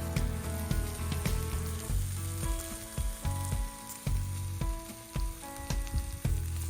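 Food sizzling in a frying pan, a steady hiss that stops abruptly at a cut. Background music with a steady beat plays over it.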